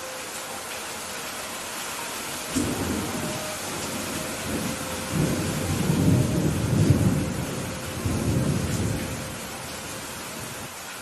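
Steady rain with a roll of thunder. The low rumble begins about two and a half seconds in, is loudest around six to seven seconds, swells once more and then dies away, while the rain hiss carries on.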